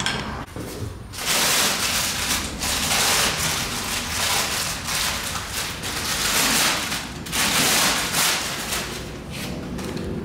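Clear protective plastic wrap on a new motorcycle's seat rustling and crinkling as it is handled, in repeated loud noisy bursts that start about a second in.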